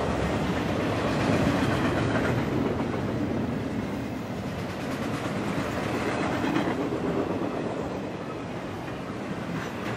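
Intermodal freight train rolling past: the wheels of its double-stack container and trailer cars running steadily on the rails, easing off slightly toward the end.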